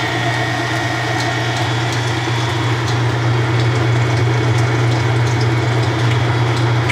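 Kenmore 80 Series top-load washer running an empty spin cycle: a steady motor hum with the whir of the spinning drum and drain pump.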